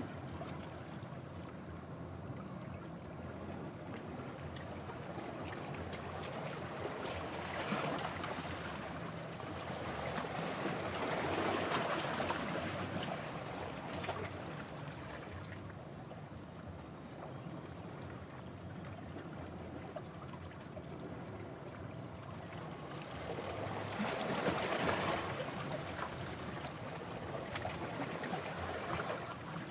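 Sea waves washing in, a steady rush that swells louder a few times as bigger waves come through.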